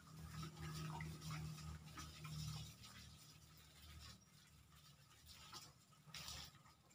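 Faint footsteps rustling and crunching on dry leaf litter, with a low steady hum in the first three seconds.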